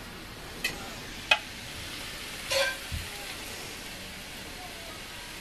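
A hot skillet of stir fry, just taken off the heat, sizzling steadily as it is tossed and served with metal tongs. A few light clicks and knocks of the tongs against the pan and bowl come through over the first three seconds.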